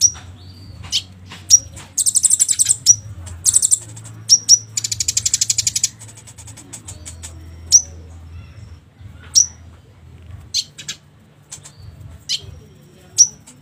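Olive-backed sunbird (kolibri ninja) calling: sharp, high chirps about every second, with two fast rattling trills in the first half.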